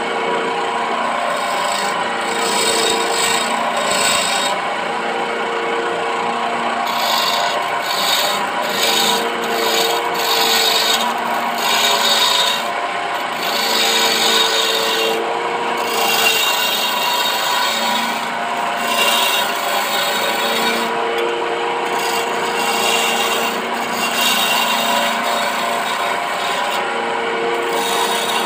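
Electric wood lathe running with a steady hum while a hand-held turning chisel cuts a spinning teak table leg. The scraping of the chisel on the wood comes and goes in strokes of a second or two.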